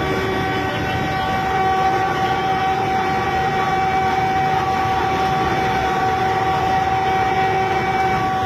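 Train 18 electric trainset running at speed, heard from inside the driver's cab: a loud, steady running rumble with a constant whine on top.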